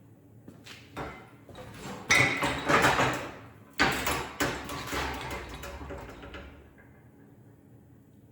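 Metal clanking and scraping as the engine and hoist hardware are shifted by hand: a few light knocks, then two loud rattling stretches about two and four seconds in, dying away near the end.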